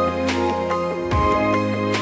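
Instrumental background music: held chords over a low bass note that changes about a second in, with a steady drum beat.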